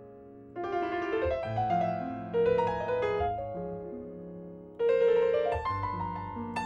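Background piano music: sustained notes in gentle phrases, with a louder phrase entering about half a second in and another near five seconds.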